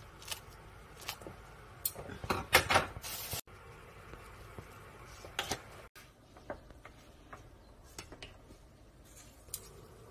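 Scattered light clicks and knocks of tableware at a meal, with a louder stretch of clatter and rustling about two to three seconds in.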